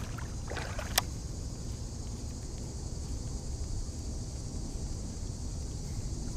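Outdoor lakeshore ambience: steady wind noise on the microphone under a steady high insect chorus, with one sharp click about a second in.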